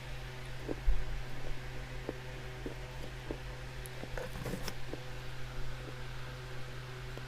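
Dry clay being crunched and crumbled by hand: scattered small cracks and crumbles, with a cluster of sharper crackles about four to five seconds in. A dull low thump comes about a second in, over a steady low hum.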